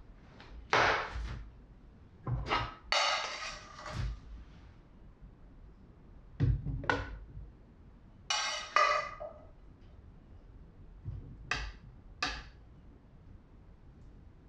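Kitchen utensil sounds: a spatula scraping cooked liver out of a stainless steel pan into a plastic blender jug, in about seven short scrapes and knocks with pauses between them.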